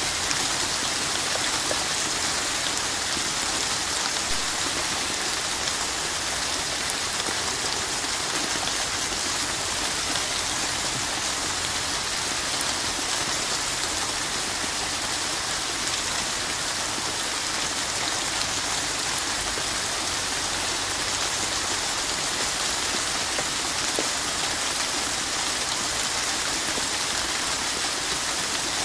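Steady rainfall: an even hiss of rain with a fine patter of individual drops, unchanging throughout.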